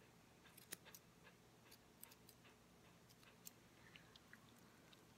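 Faint, irregular snips of hand grooming shears cutting a poodle's leg hair: a scattering of single clicks, some about a quarter-second apart, others a second or more apart, over near silence.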